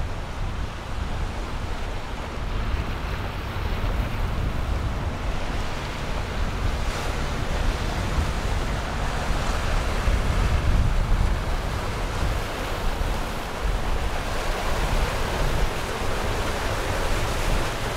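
Ocean waves breaking and washing in rough surf, a steady rushing noise that swells and eases, with wind buffeting the microphone in gusty low rumbles.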